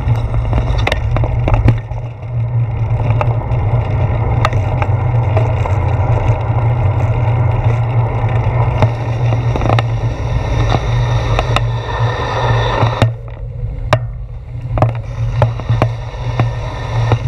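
Riding noise from a bicycle on a wet road, picked up by a handlebar-mounted action camera: a steady low rumble with tyre hiss and scattered clicks and knocks. About 13 seconds in, the hiss drops away as the bike slows towards an intersection.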